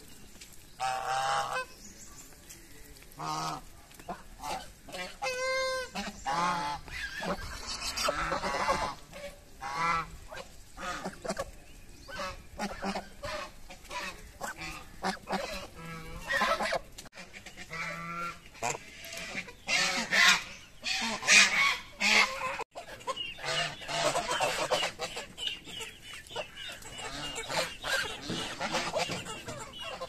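A flock of domestic geese honking, with many short calls overlapping one after another. The calls are loudest and busiest around twenty seconds in.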